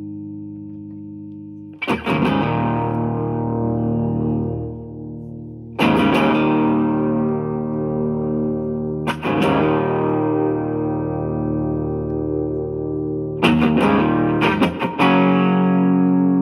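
Electric guitar with three single-coil pickups (a Stratocaster) played through a Yamaha THR10C modeling amp on its MINI amp model. Chords are strummed about every four seconds and left to ring out, with a few quick strums near the end.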